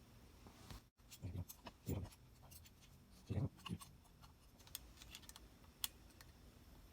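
Faint scattered clicks, ticks and a few soft knocks of an Allen key and small metal bolts being snugged into a steering wheel quick-release hub.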